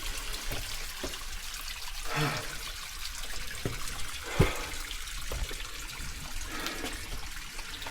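Geothermal hot-spring water trickling and running steadily over rock, with a few sharp knocks, the loudest about halfway through.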